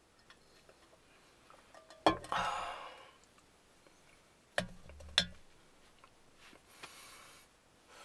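Handling of metal camp cookware: a knock about two seconds in followed by a breathy sigh, then two sharp knocks of a wooden spoon against a metal pot about half a second apart, and a soft rustle near the end.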